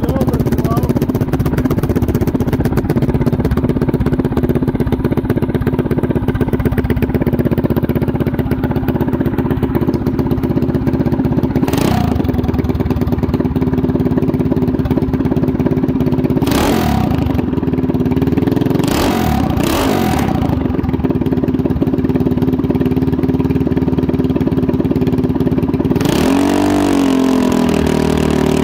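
Mini bike's 212 cc single-cylinder OHV engine idling steadily, blipped up in revs a few times and held up longer near the end.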